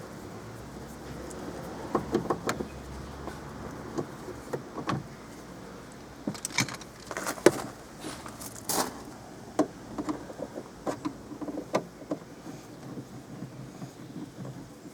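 Irregular clicks, taps and rattles of screwdrivers and plastic trim as a car's inside door panel is being unscrewed and unclipped, with a cluster of sharper clicks about halfway through.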